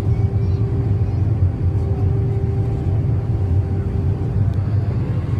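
Airliner cabin noise: a steady low rumble of the engines and airflow heard from inside the passenger cabin, with a faint steady hum above it that fades out about four seconds in.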